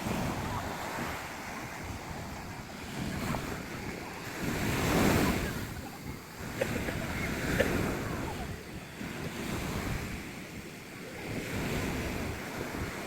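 Sea waves breaking and washing up on a sandy beach, surging and ebbing in slow swells, with wind rumbling on the microphone. The biggest surge comes about five seconds in.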